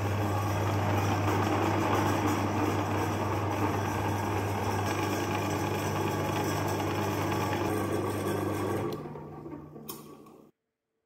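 Electric meat grinder running, its motor humming steadily as the auger forces chocolate bars through the plate. About nine seconds in the motor is switched off and winds down, and the sound cuts off abruptly near the end.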